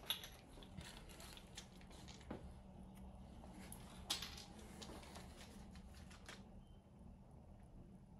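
Faint scattered clicks and small handling noises over a low hum, as a masonry drill bit is swapped from 5 mm to 6 mm in the drill's chuck. One sharper click comes about four seconds in.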